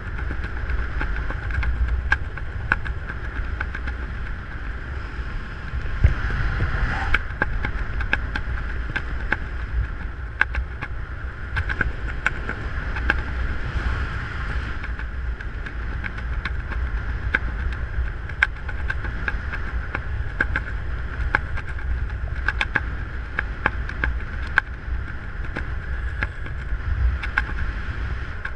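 Wind buffeting the camera microphone of a skydiver flying under an open parachute canopy: a steady low rumble with frequent small clicks and ticks, a little louder about six seconds in.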